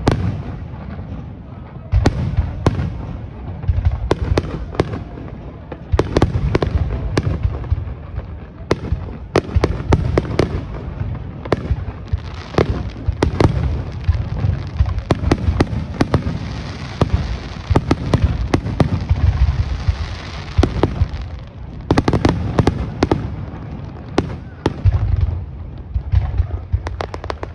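Aerial firework shells bursting in quick succession, a dense barrage of booms and sharp bangs with a deep rumble under them. A steady hiss runs between the bangs a little past halfway, and the barrage eases briefly near the end.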